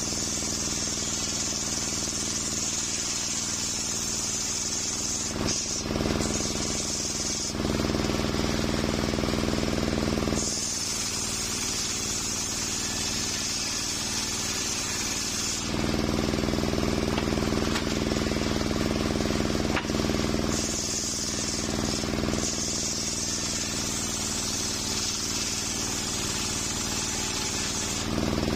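Large circular saw bench ripping coconut-palm wood into beams: the blade's drive runs steadily under a constant hum. Every few seconds the sound switches between a sharp hiss and a fuller drone and back, as the blade works through the wood.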